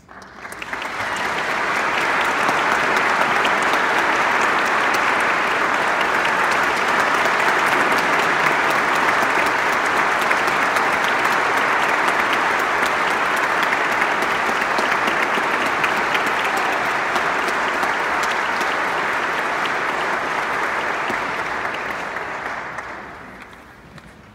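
Audience applauding: dense clapping that builds over about two seconds, holds steady for around twenty seconds, then dies away near the end.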